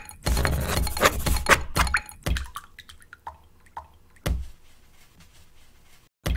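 Watercolour painting sounds: about two seconds of busy brush-and-water noise with many quick strokes, then scattered drips and light taps.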